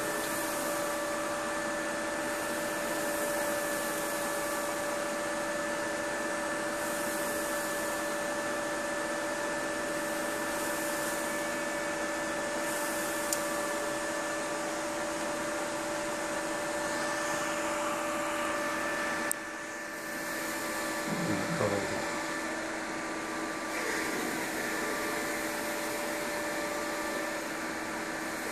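Steady whirring of the test bench's cooling fans, holding a few constant tones, under the hiss of liquid nitrogen being poured from a flask into the graphics card's cooling pot and boiling off. The hiss swells and fades with the pours. A brief low sound comes shortly after a short dip, about two-thirds through.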